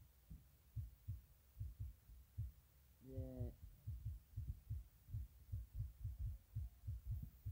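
Dull low thumps, irregular, about three a second, like a heartbeat or a muffled beat. A short low tone sounds once, about three seconds in, falling slightly.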